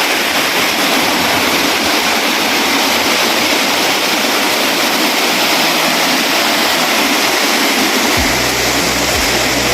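Waterfall rushing steadily, a loud, even wash of falling water. Low bass notes of music come in about eight seconds in.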